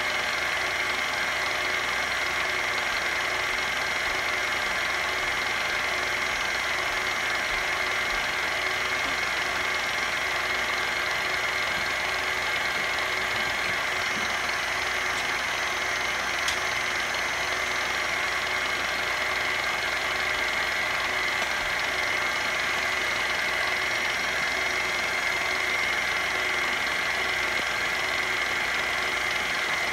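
Electric mixer motor running steadily as it beats cake batter, an even whir with no changes in speed.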